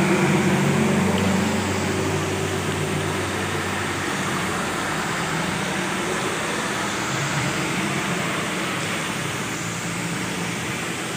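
Heavy rain falling steadily, with vehicles passing on the wet road: an engine drone and tyre hiss that are loudest in the first couple of seconds and fade out about four seconds in.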